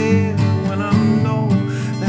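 Music with strummed acoustic guitar, playing steadily.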